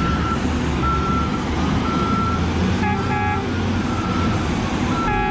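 Heavy truck engine running with a reversing alarm beeping about once a second. A horn honks twice briefly about three seconds in, and a longer horn blast starts at the very end.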